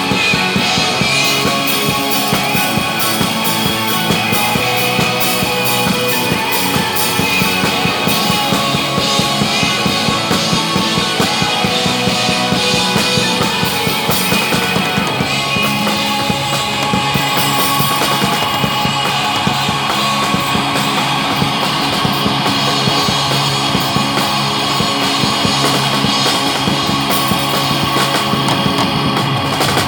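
Drum kit played hard to loud rock music with guitar, running steadily without a break.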